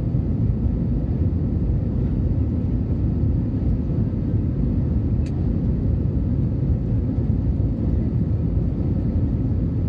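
Steady low rumble of an Airbus A320's engines and airflow, even in level throughout, with a single short click about five seconds in.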